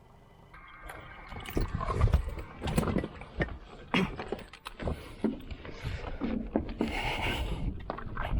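Handling noises: a run of irregular knocks, thuds, rubbing and scraping that starts abruptly about half a second in.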